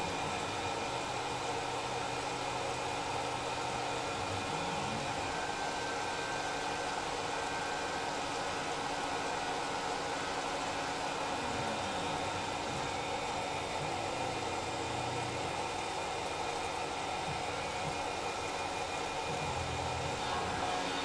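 Tormach PCNC 1100 CNC mill running a finishing pass around the perimeter of a part: a steady spindle and cutting noise with several fixed tones, and a low hum that glides in pitch and changes a few times along the way.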